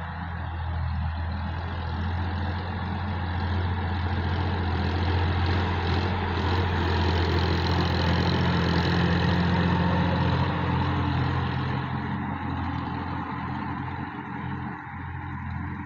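Sonalika DI 50 RX tractor's diesel engine running steadily under load while it pulls a rotary tiller through the soil, a constant low drone with the tiller's churning noise over it. The sound swells through the middle as the tractor passes close, then eases off.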